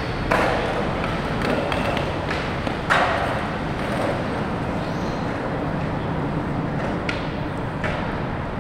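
Skateboard rolling on smooth concrete, its wheels giving a steady rumble, with a few sharp clacks and thuds from the board landing. The loudest impact is about three seconds in, and smaller knocks come near the start and about seven seconds in.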